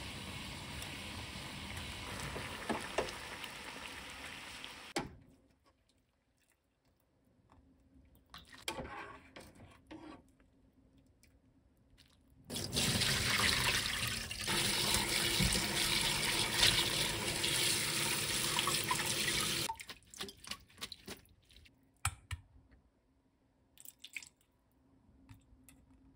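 A pot of water boiling on the hob while green garlic is stirred in it to blanch. After a quieter stretch, a kitchen tap runs hard for about seven seconds into a stainless steel sink, rinsing the blanched greens in a mesh strainer with cold water. A few light clicks and knocks follow near the end.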